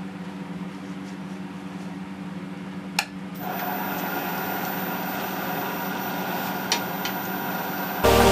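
Small 550 W wood lathe running with a steady motor hum. A sharp click comes about three seconds in, after which the motor's whine gets louder. Right at the end the turning tool bites into the spinning workpiece with a loud scraping cut.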